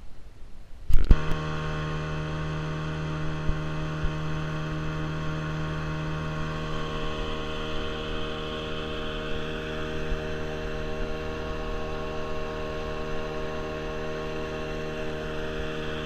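Outboard motor running steadily at speed, driving a boat along, a level engine drone that cuts in abruptly about a second in.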